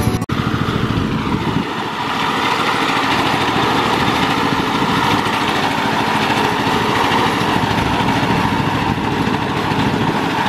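Small engine of a remote-controlled tracked mower running steadily as the mower tows a pickup truck on a chain. Its note dips slightly early on and then holds steady.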